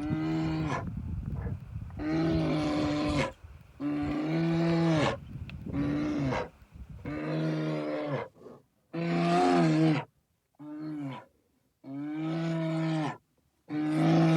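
A large animal calling over and over: about nine drawn-out, steady-pitched calls of roughly a second each, with short pauses between them.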